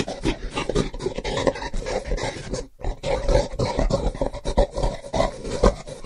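Gorilla vocalising: a rapid, irregular run of gruff grunts and short roars, with a brief break a little under halfway through.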